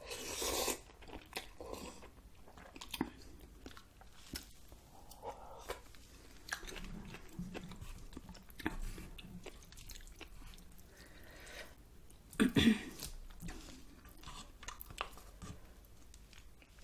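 A person eating spicy ramen noodle soup: a loud slurp of noodles in the first second, then chewing with many small mouth clicks, and another loud slurp about twelve seconds in.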